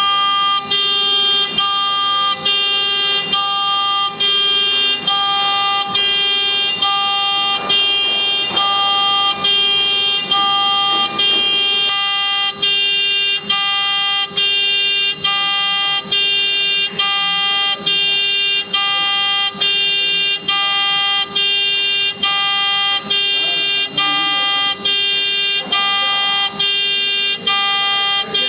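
Electronic alarm sounding continuously: a steady buzzing tone that alternates between two pitches, repeating about once a second.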